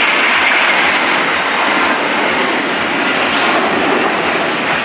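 Aircraft engine noise from a plane flying past: a loud, steady rushing roar.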